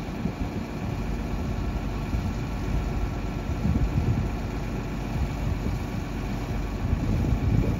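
An engine idling steadily, a continuous low running rumble.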